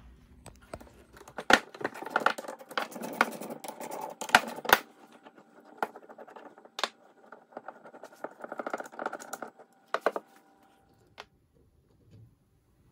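Hands handling a Yamaha VMax 1200 brake caliper and small metal parts on a workbench: an irregular run of sharp clicks and knocks with scraping in between, the loudest clinks about one and a half and four and a half seconds in, dying away about ten seconds in.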